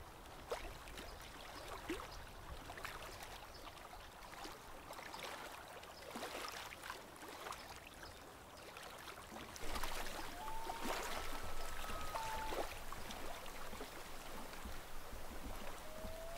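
Gentle water lapping and light splashing at a lake's edge, with a dog wading in the shallows. About ten seconds in, and again near the end, long pitched calls glide up, hold and step between notes.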